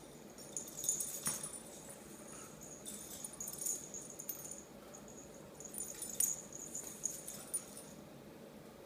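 A dog and a cat play-wrestling on a tiled floor: scuffling in irregular bursts, with sharp clicks and light collar jingling, in three flurries.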